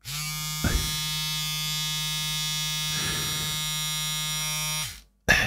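Cheap battery hair trimmer switched on and running with its blade uncovered: a loud, steady buzz, quite noisy, which the owner suspects comes from the bare blades rattling. A brief knock under a second in, and the buzz cuts off near the end.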